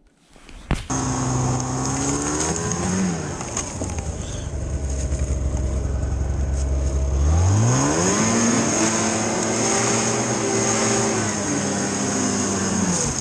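Ski-Doo Tundra snowmobile engine running while the sled is ridden. It starts about a second in, revs up sharply about seven seconds in, holds high, and drops back near the end.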